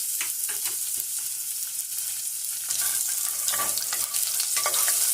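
Garlic sizzling in a spoonful of hot oil in a non-stick pot: a steady hiss, broken by a few short clicks and scrapes of a utensil stirring it, twice near the start and again later on.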